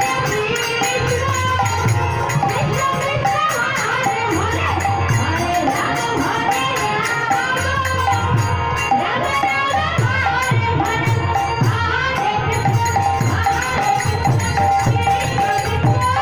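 Live kirtan music: a khol barrel drum beating a steady rhythm under a harmonium and singing voices.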